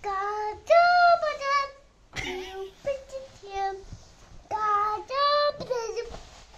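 A young child singing unaccompanied, in short held high-pitched phrases with brief pauses between them.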